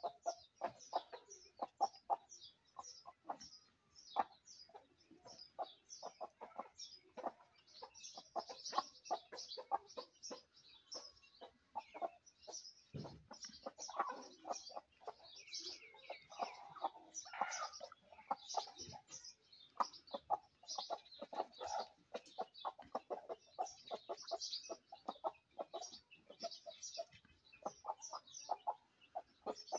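Aseel and fancy-breed chickens clucking in quick short notes, several a second, as they feed on scattered grain, with a few longer calls around the middle.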